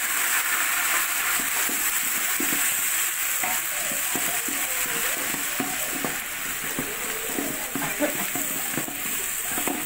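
Garlic sizzling steadily in hot oil in a large aluminium pot, stirred with a ladle that scrapes the pot again and again.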